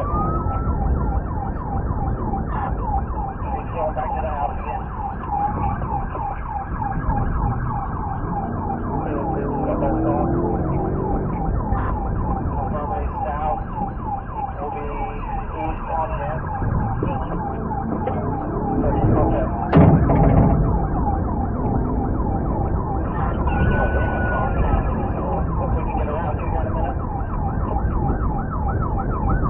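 Police car siren sounding a fast, repeating yelp, over the pursuing car's engine and road noise. There is one sharp thump about twenty seconds in.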